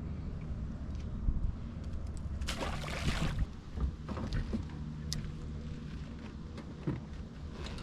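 Boat on the water with a steady low hum and some wind. A short rushing noise comes about two and a half seconds in.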